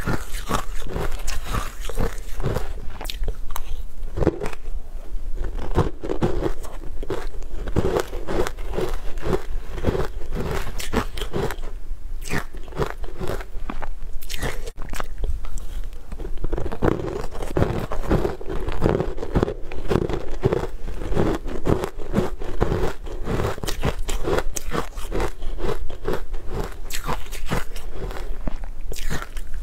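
A person eating close to a clip-on microphone: steady rhythmic chewing of mouthfuls of soft green powder-dusted food, a few chews a second, with small sharp mouth clicks.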